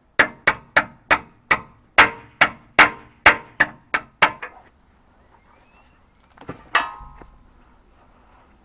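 Hammer striking metal about a dozen times in a quick steady rhythm, roughly three blows a second, each blow ringing briefly. After a pause of about two seconds come two more blows, the second louder and ringing on.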